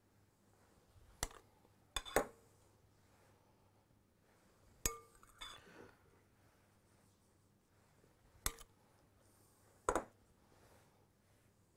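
A metal spoon clinking against a glass mixing bowl and a frying pan as a mushroom-and-cheese topping is scooped onto beef fillets: several sharp, short clinks spread out, with a brief scrape about halfway through.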